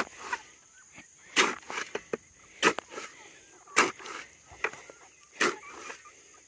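A shovel blade jabbing down into a plastic bucket of soft, overripe pears, mashing them, with five sharp chopping strikes about one every second and a quarter.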